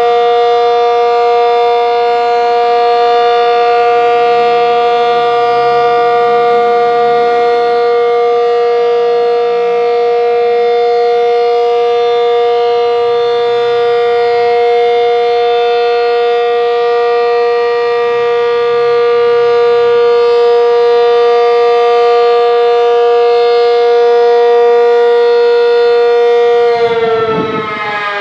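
ASC Cyclone C-125 tornado siren sounding its Alert signal: one loud, steady held tone with several overtones. About a second before the end the pitch starts to fall as the siren begins to wind down.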